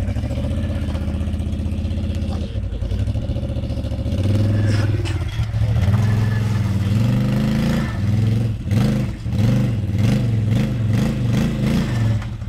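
Quad bike (ATV) engine running close by under load in mud, revving up about four seconds in, then blipped in quick surges, two or three a second, near the end.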